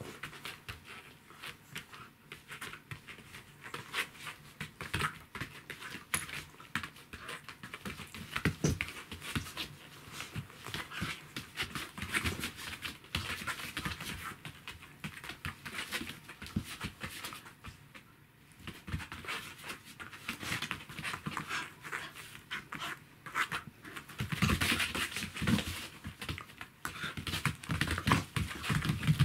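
Welsh corgi panting and making dog noises while play-fighting with a cat, over a busy patter of scuffling paws and small knocks. It gets louder about two-thirds of the way through and again near the end.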